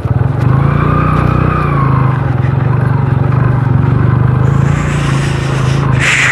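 Yamaha YBR 125 motorcycle's single-cylinder four-stroke engine running at steady throttle while riding over a rough rocky dirt track, heard from on the bike. A brief burst of hiss comes near the end.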